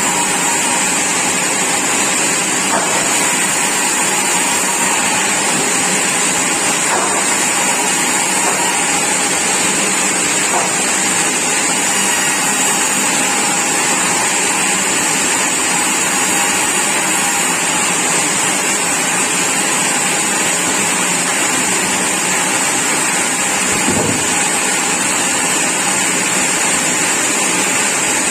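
Sawmill machinery running with a loud, steady noise and a high hiss on top, unbroken throughout.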